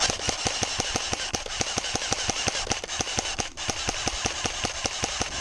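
Airsoft electric gun firing one long full-auto burst: a steady train of sharp clicking shots, about eight a second.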